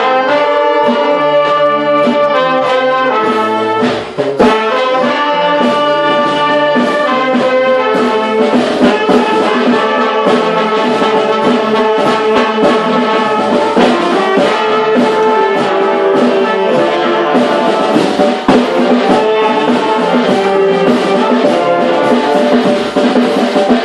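A brass street band of trumpets and trombones plays a tune together at full volume. It comes in abruptly, has a brief dip about four seconds in, and breaks off at the very end.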